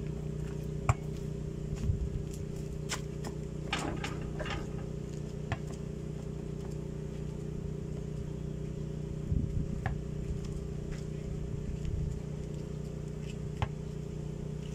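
A steady low mechanical hum, with a few scattered thuds and sharp knocks from a basketball being bounced and shot at a hoop on a dirt court.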